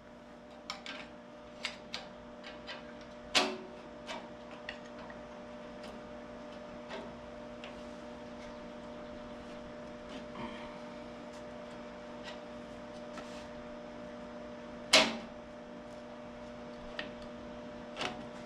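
Hand tools clicking and knocking against tractor parts during disassembly: scattered light ticks, with two louder knocks about three seconds in and near fifteen seconds, over a steady hum.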